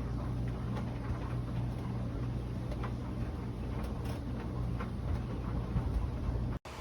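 Euhomy 850 W compact portable clothes dryer running on full heat, a steady low motor hum with faint light ticks over it; it cuts off suddenly near the end.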